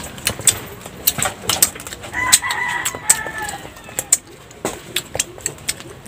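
A rooster crows once, about two seconds in, over short sharp clicks and smacks of eating.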